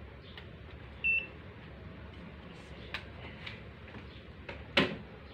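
A digital thermometer gives one short high beep about a second in, the sign that its temperature reading is done. A few faint clicks follow, and a louder thump near the end.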